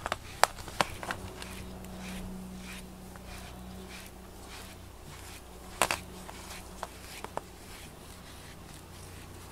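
A rubber grooming brush rubbing through a cat's fur: soft rustling with a few sharp clicks, one near the start and a cluster a little past the middle, over a steady low hum.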